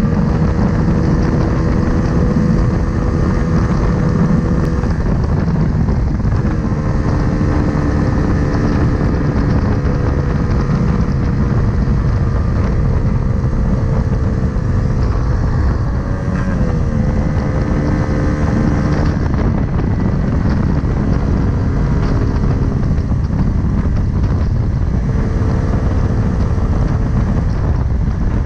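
Riding a small scooter, with heavy wind buffeting on the microphone over a steady hum from the scooter's motor. The hum shifts pitch a few times with speed and glides down about two-thirds of the way through.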